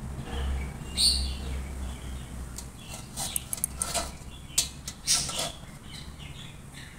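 A knife slicing soft ice apple (palm fruit) flesh on a brass plate, the blade clicking and scraping against the metal several times at irregular intervals, over a low steady hum.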